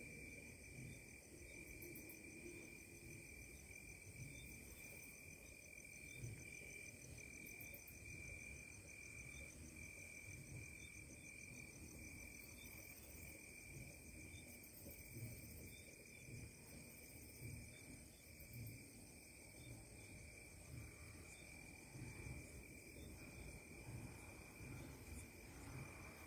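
Crickets and other night insects trilling steadily, several high continuous tones layered together, over a faint low rumble.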